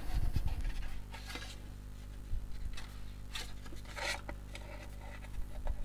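Faint rustling and scraping of a cardstock box piece and thin cord being handled as the cord is pulled through a hole in the card, a few brief soft rubs over a steady low hum.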